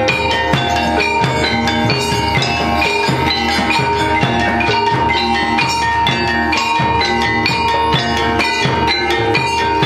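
Gamelan-style music played without a break: ringing tuned metal gongs and metallophones over steady drum strokes.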